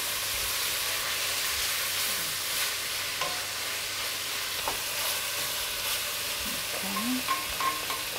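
Cubes of beef sizzling as they brown in a pot while a wooden spoon stirs them, with a few light clicks of the spoon against the pot.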